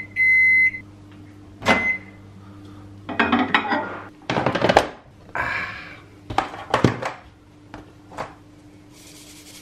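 Microwave oven end-of-cycle beep: a steady high tone that ends about three-quarters of a second in, then a click and one short beep. Then a glass dish is taken out of the microwave and set down, with several irregular knocks and clatters of glass on hard surfaces.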